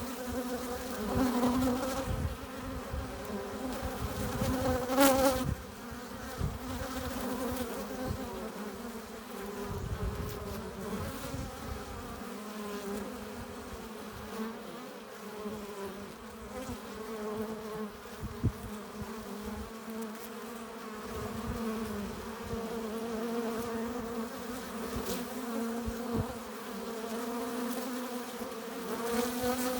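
Honey bees buzzing at the hive entrance: a continuous drone of many wingbeats. Individual bees flying close swell it louder briefly, most strongly about five seconds in.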